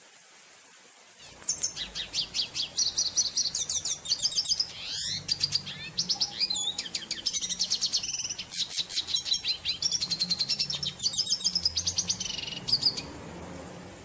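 Red siskin (Venezuelan goldfinch) singing one long, fast twittering song of trills, slurred whistles and chattering notes. It starts about a second in and stops about a second before the end.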